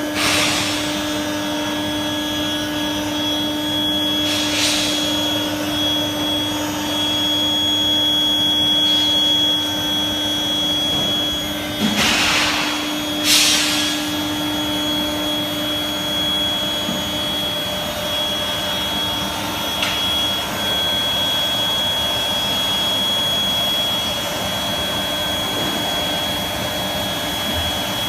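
Induction furnace running: a steady noisy drone with a constant low hum and a thin high whine, broken by a few brief hissing rushes, two of them close together about halfway through.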